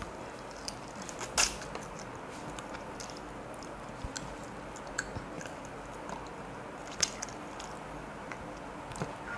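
A person eating curry and rice by hand: chewing and the soft squish of rice being mixed in gravy on a plate. Scattered short clicks run through it, the loudest about a second and a half in and again about seven seconds in.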